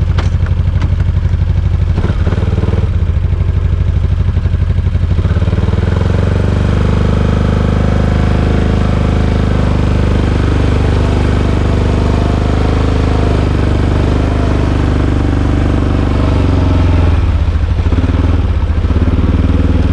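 ATV (four-wheeler) engine running loud and steady at a low pitch while riding, lifting slightly in pitch about six seconds in and swelling a little near the end.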